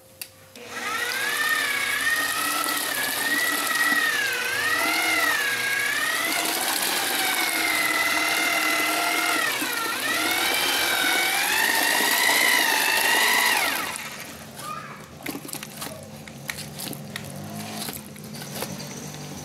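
Corded electric drill with a paddle mixer stirring cement mix in a plastic bucket, its motor whine rising and falling in pitch as the speed changes. The drill stops about two-thirds of the way through, leaving knocks and scrapes of the paddle in the bucket.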